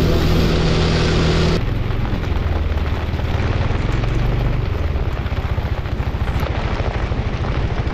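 Suzuki Burgman 400 scooter's single-cylinder engine running, a low steady pulsing under a loud hiss. About one and a half seconds in the hiss drops suddenly, and the engine note carries on.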